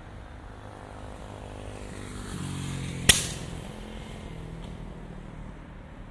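A motor vehicle passes close by on the street, its engine pitch falling as it goes past. About three seconds in there is a single sharp bang.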